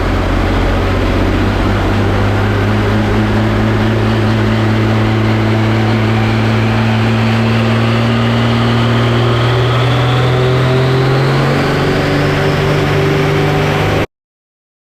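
Pro Stock pulling tractor's engine running loud and steady, its pitch climbing slowly, with a high whine rising above it; the sound cuts off abruptly near the end.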